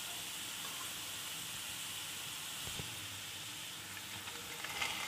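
Sliced onions with freshly added turmeric and red chilli powder sizzling in hot oil in a kadhai: a steady, soft hiss. Near the end come a few faint clicks as chopped okra starts to go into the pan.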